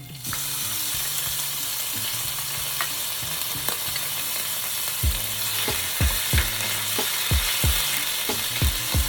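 Garlic sizzling in hot oil in a pot. The sizzle starts suddenly as it goes in and then holds steady. From about halfway, a spoon knocks against the pot over and over as the garlic is stirred.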